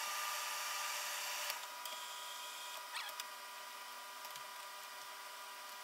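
Steam iron hissing as it presses, cutting off suddenly about a second and a half in, with a shorter fainter hiss soon after; then soft rustling as the suit-trouser fabric is handled, over a faint steady hum.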